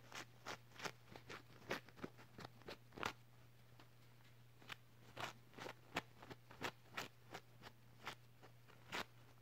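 Close-up ASMR hand sounds: a run of sharp, crisp crinkles and taps near the microphone, irregular at about three a second, with a pause about three seconds in.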